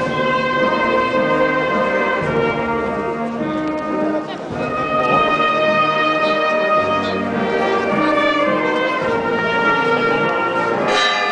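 Brass band playing a slow procession march in long held chords.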